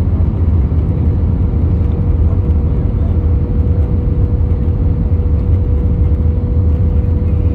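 Airliner cabin noise during the descent to land: a loud, steady low roar of the jet engines and airflow, with a steady hum running through it.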